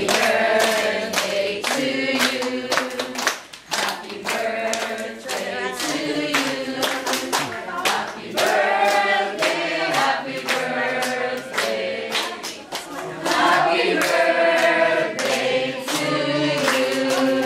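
A group of people singing together while clapping their hands along in a steady beat.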